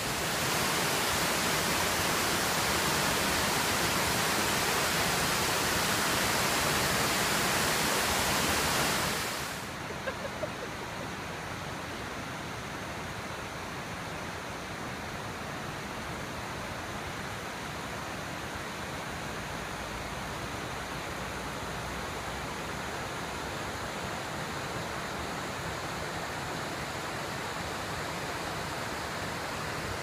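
Steady rush of water from a wide waterfall and the shallow river sheeting over bedrock, a full, bright hiss. About nine seconds in it drops to a quieter, duller rush that holds steady.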